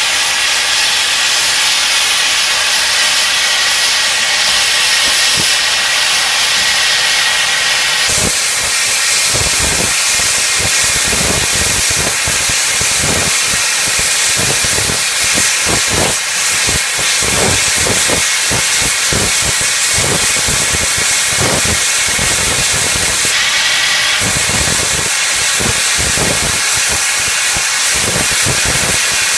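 NSWGR C36 class steam locomotive 3642 venting steam in a loud, steady hiss. Irregular low rumbles join in underneath from about eight seconds in.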